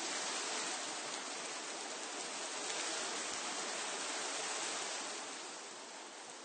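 Wind blowing through tree foliage, a steady rustling hiss of leaves that swells in a gust and eases off about five seconds in.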